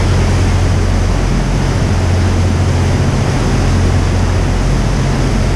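Boat engine running steadily with a low hum, over an even rush of water.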